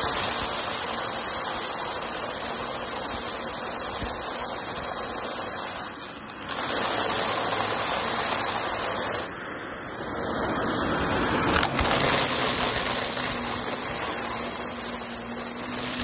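Shark Navigator upright vacuum running over carpet as it sucks up a pile of small crushed debris, the bits crunching and rattling up the nozzle. The sound drops briefly twice, and there is a sharp click about two-thirds of the way through.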